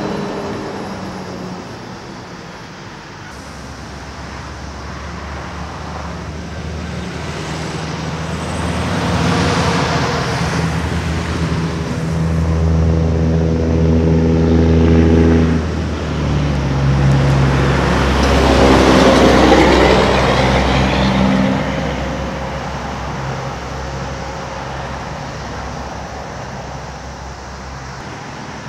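Diesel semi-truck engines and road traffic passing at speed: a steady engine note builds to its loudest a little past halfway, stepping down in pitch about halfway through, and tyre rush sweeps past twice before the traffic eases off.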